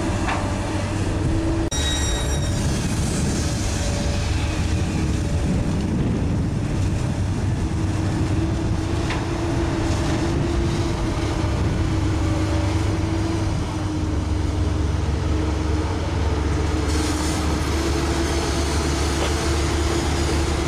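Komatsu PC200 excavator's diesel engine running steadily under working load, a continuous low rumble with a steady whine on top.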